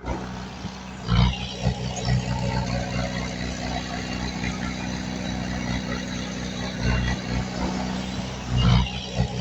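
Heavy diesel earthmoving machinery running steadily, with two louder moments, one about a second in and one near the end.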